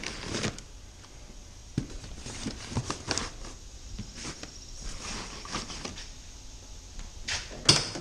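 Gear being shifted by hand in a UTV's cargo bed: scattered knocks, rustles and clatter of a cardboard box, a plastic cooler and tool handles, with one sharper knock near the end.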